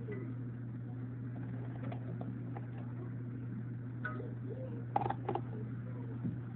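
A steady low hum, with faint handling sounds and two short clicks about five seconds in as sandwich toppings are set on a plate.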